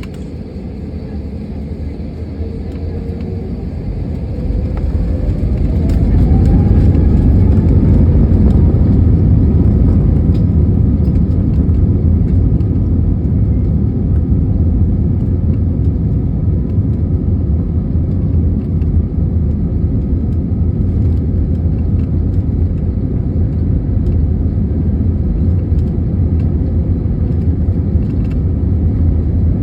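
Airbus A320neo jet engines spooling up to takeoff power: a whine rising in pitch over the first six seconds as the noise builds, then a loud, steady low rumble through the takeoff roll.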